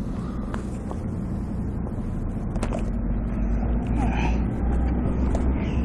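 City street traffic: vehicle engines and tyres making a steady low rumble, which grows a little louder about four seconds in as a vehicle drives by.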